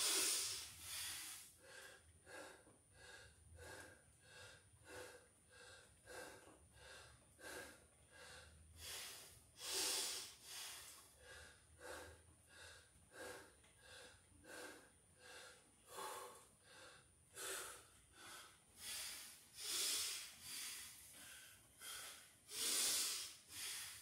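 A man panting heavily to recover after a set of burpees, about two breaths a second, with a few deeper, louder breaths in between.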